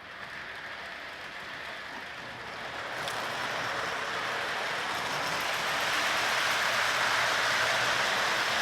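O gauge model train running on three-rail track: a steady rolling rattle of wheels and motor that grows gradually louder.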